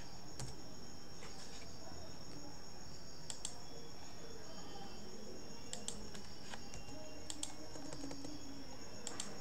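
Scattered computer keyboard and mouse clicks, a few at a time, while text is typed and edited. Under them runs a steady high-pitched whine.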